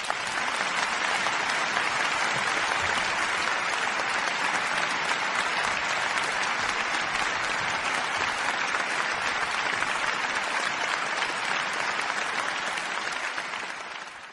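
Applause: many hands clapping together, swelling in quickly, holding steady, then fading out near the end.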